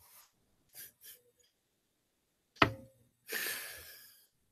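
Short breathy puffs from a person, then a sharp knock about two and a half seconds in, followed by a long breathy exhale that fades away.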